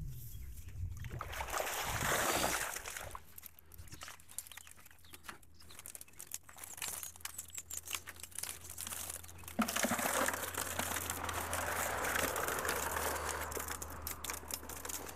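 Water pouring and dripping off a mesh keepnet as it is lifted out of the river, then water and crucian carp tipped from the net into a plastic bucket, splashing for several seconds near the end.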